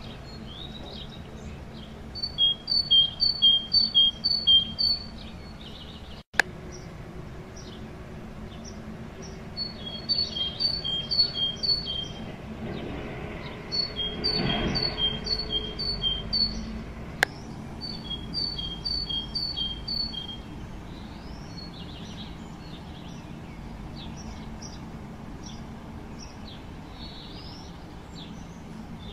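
Great tit singing its spring song: bright two-note phrases, a high note alternating with a lower one about five times per phrase, given in several bursts, with softer scattered chirps near the end. A low rushing noise swells and fades in the middle, and a sharp click comes about six seconds in.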